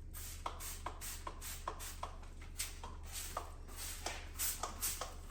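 Rag rubbing over steel roll-cage tubing in quick back-and-forth strokes, about two to three a second, wiping it down with Windex before primer.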